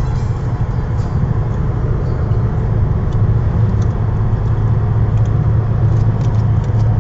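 Car cabin noise while driving at highway speed: a steady low drone of engine and tyres on the road.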